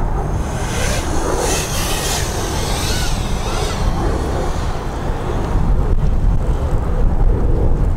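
Wind buffeting the microphone, with the high buzzing whine of a small FPV quadcopter's motors and propellers, strongest in the first few seconds and then fading as the quad flies off.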